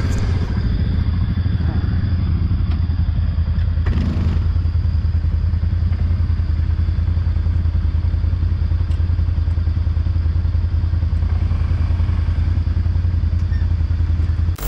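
Quad bike (ATV) engine running steadily at a constant low speed, a deep even hum with no revving. A short scrape or clatter comes about four seconds in.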